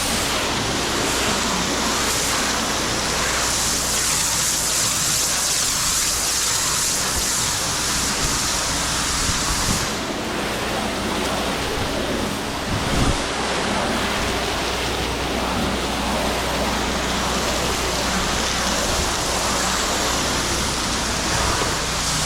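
Pressure washer spraying water in a steady hiss, rinsing cleaner off stone and rocks, over a low steady hum from the machine. The high part of the spray's hiss drops about ten seconds in.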